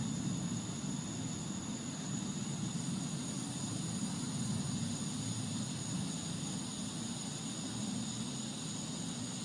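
Steady low rumbling drone of an unexplained outdoor noise, with a thin, steady high tone above it.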